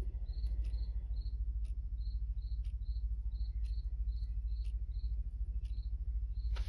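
Chelsea Shipstrike quartz clock ticking, one sharp tick about every second. Over it, a cricket chirps at a steady high pitch two or three times a second, with a steady low hum underneath.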